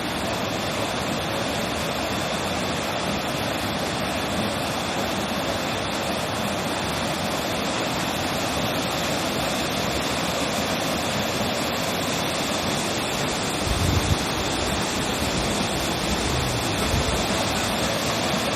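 Heavy floodwater after a typhoon rushing steadily past, a continuous loud wash of water. A brief low thump comes about fourteen seconds in.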